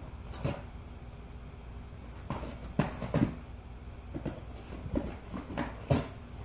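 A golden retriever tearing and chewing a cardboard box: a string of short, sharp rips and crunches, irregular and some clustered together, the loudest about three seconds in and again near the end.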